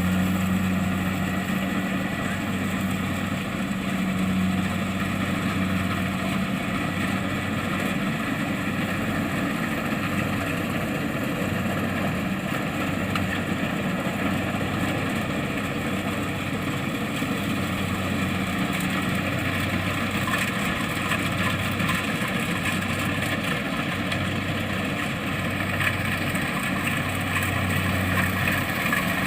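Kubota DC-70 Plus combine harvester's diesel engine and machinery running steadily: an even low hum under a broad mechanical noise.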